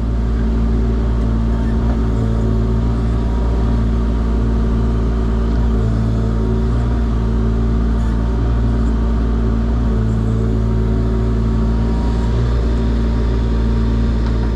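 Compact excavator's diesel engine running steadily at an even speed.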